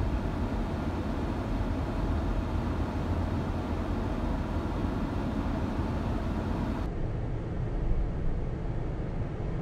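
Steady road and engine noise inside a moving car's cabin: a low rumble with tyre hiss on the highway.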